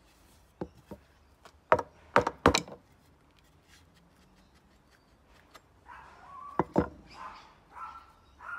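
Sharp wooden knocks as a steel axe head and a new wooden handle are knocked together and against a wooden bench while the handle is test-fitted into the head: a handful of knocks in the first three seconds, the loudest about two and a half seconds in, then two more near the end. An animal calls in the background over the last few seconds.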